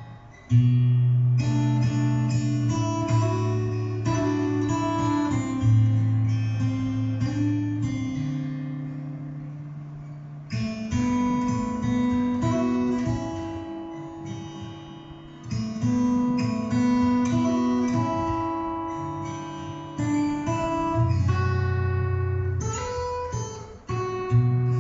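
Recorded acoustic guitar music played back from a CD: strummed and picked chords over a bass line. Each fresh strum, every few seconds, rings out and then fades.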